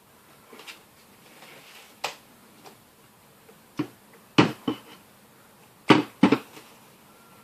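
Fluffy slime being squished and worked by hand, giving irregular wet pops and clicks. The loudest come in a cluster about four and a half seconds in and a pair about six seconds in.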